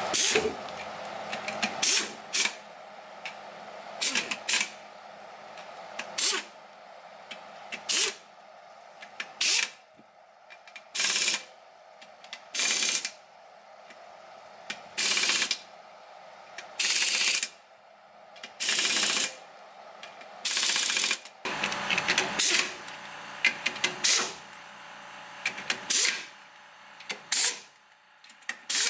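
Pneumatic impact wrench running and tightening wheel lug nuts in a long series of short bursts, about one every second or two.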